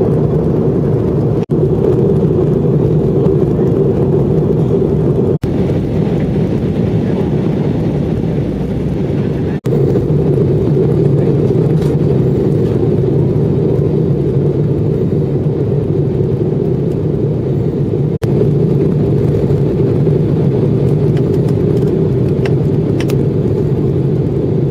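Steady drone of an airliner's engines and rushing air heard inside the passenger cabin on the approach for landing, with a strong low hum; the sound cuts out for an instant four times.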